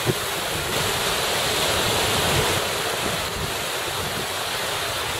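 Small waves and surf washing in shallow sea water, a steady rushing wash, with wind on the microphone.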